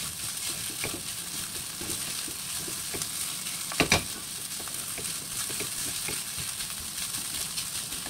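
Rice and salted octopus sizzling in a hot wok while being stir-fried, the spatula scraping and clicking against the pan. There is a louder double knock about four seconds in.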